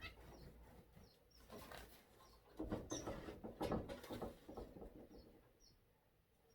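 Aviary birds chirping, short high calls repeated every second or so, over rustling and light knocks of things being handled; the handling is loudest in the middle.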